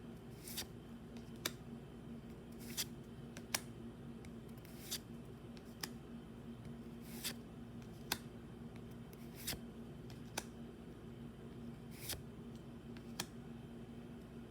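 Pokémon trading cards being handled and flipped one at a time: a short snap or swish about once a second, over a steady low hum.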